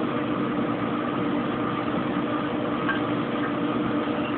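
Kenmore Oasis top-load washing machine spinning, its motor running with a steady hum made of several constant tones. It is not yet at full high-speed spin.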